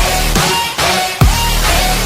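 Electronic backing music with a heavy beat: deep bass kicks that drop in pitch, about one every half second or so, over a dense synth bed.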